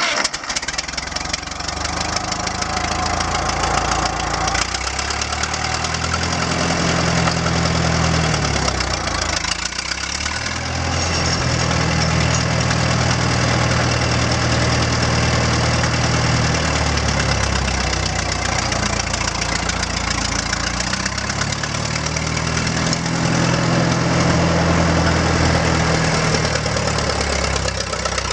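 Engine of a Case Dual Range tractor running as the tractor drives, its note strengthening and easing off several times as the throttle or load changes.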